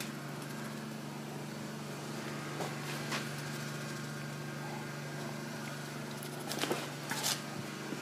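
A small electric motor humming steadily, with a few light knocks and scrapes partway through and again near the end.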